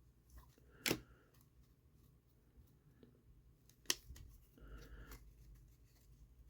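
Two sharp clicks about three seconds apart, then faint rustling, as a trading-card hanger box is opened and its cards handled.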